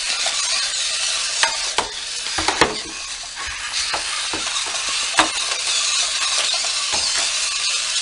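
Two radio-controlled toy fighters whirring as their battery-powered bases spin on wheels across a tile floor, with a handful of sharp plastic clacks as their arms and legs strike each other.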